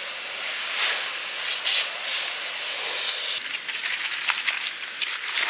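Steady hiss of heavy rain pouring down, with a few sharp crackles near the end.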